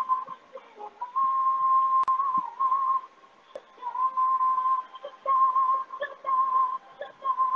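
A music video playing from a laptop's speakers: a woman's voice holds high, slightly wavering notes, separated by short breaks, over faint accompaniment.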